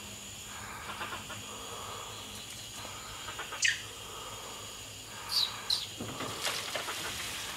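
Forest ambience with a steady high-pitched insect drone. A sharp call sweeps sharply downward about three and a half seconds in, and two shorter downward chirps follow about two seconds later.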